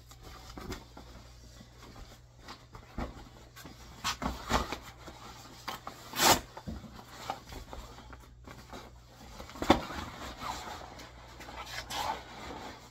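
Padded fabric speaker cover rustling and brushing as it is worked down over a speaker cabinet, with scattered handling knocks and scrapes; the two sharpest knocks come about six and nine and a half seconds in.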